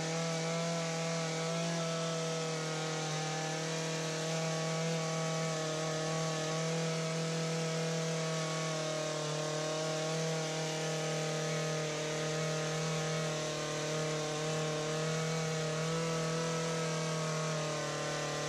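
ECHO PAS2620 power head's small two-stroke engine running steadily, driving an articulating hedge trimmer attachment's blades through a shrub. One continuous engine tone whose pitch wavers slightly.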